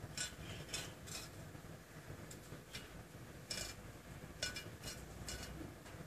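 Caged male zebra finch giving short, nasal calls, scattered irregularly about one or two a second.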